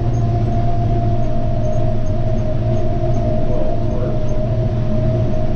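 Kioti PX 9020 diesel tractor running steadily under load while pulling a Vermeer round baler, a constant low drone with a steady whine over it.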